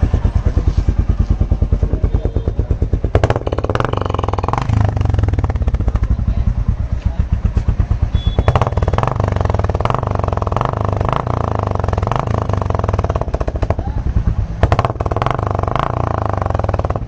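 Royal Enfield Classic 350 Reborn's single-cylinder engine running through a free-flow bend pipe and stock silencer with the catalytic converter removed, with a mudflap held behind the silencer outlet. It idles with steady firing pulses and is revved three times, the middle rev held for several seconds.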